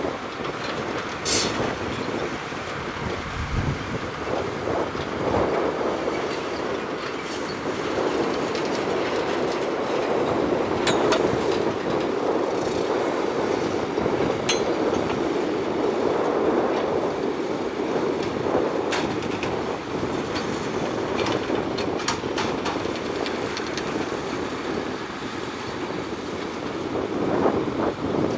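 Shantui crawler bulldozer working: its diesel engine runs steadily under load while the steel tracks clatter and squeal, with scattered sharp clanks.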